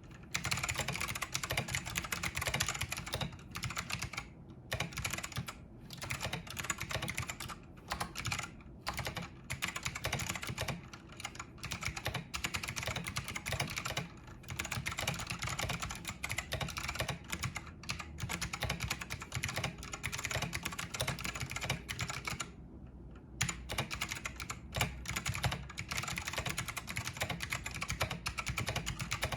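Fast, continuous typing on a Matias Tactile Pro Mini keyboard, its clicky Matias Click key switches clattering, with brief pauses here and there and a slightly longer one near the end.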